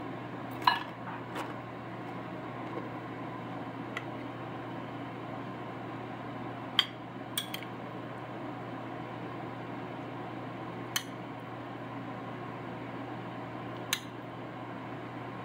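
Metal spoon clinking against a glass bowl and a ceramic plate as beet salad is served out: a handful of short, sharp clinks spread apart, over a steady low hum.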